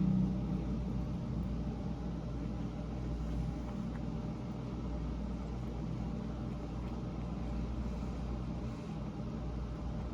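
Steady low mechanical hum, even throughout with no distinct clicks or knocks.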